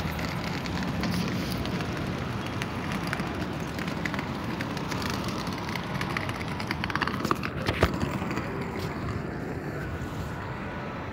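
Outdoor city-square ambience: a steady hum of distant traffic and wind on the phone's microphone, with a few sharp clicks about seven to eight seconds in.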